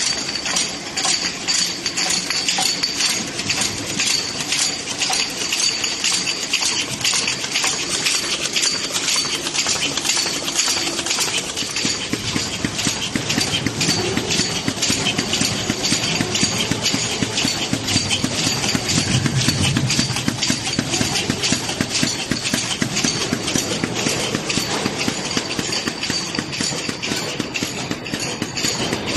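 High-speed cartoning machine running steadily as it packs glass bottles into cartons, clattering evenly about three times a second, matching its rate of some 200 cartons a minute, with a steady high whine over the clatter.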